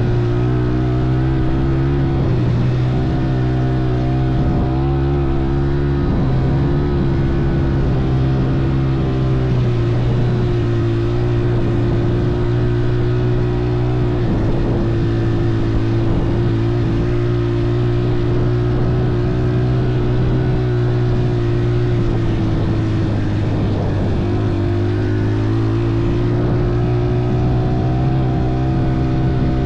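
Motorcycle engine running steadily under way at a fairly constant speed, its pitch dipping briefly and climbing back about three-quarters of the way through as the throttle eases and opens again.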